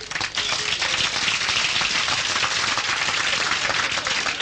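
Crowd applauding: dense, steady clapping that swells in within the first half second.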